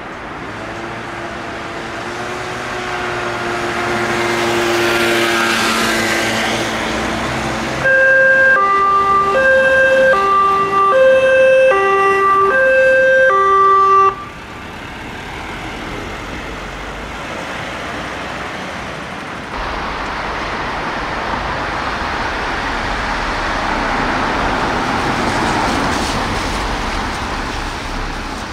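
Belgian police van's two-tone siren, a high and a low note alternating about once a second, loudest for several seconds near the middle and then cutting off suddenly. Afterwards engine and tyre noise of passing road traffic.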